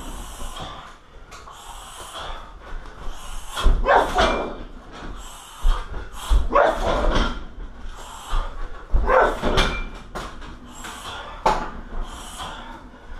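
Shin kicks landing on a 60 kg Everlast heavy bag: about four heavy thuds a couple of seconds apart, each with a short, sharp burst of sound that could be the fighter's grunt on impact.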